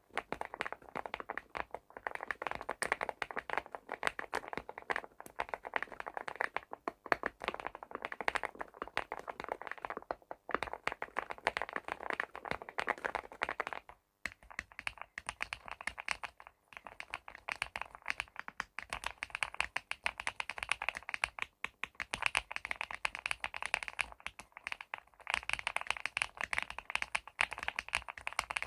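Rapid typing on a mechanical keyboard fitted with custom keycaps, a continuous stream of key clacks. The typing pauses briefly about halfway, and after that the clacks sound brighter.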